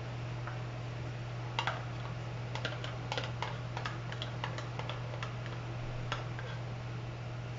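Metal spoon clicking and scraping against a plastic measuring cup while thick pudding mixture is spooned out of it, a run of light, irregular clicks from about a second and a half in until about six seconds in. A steady low hum underneath.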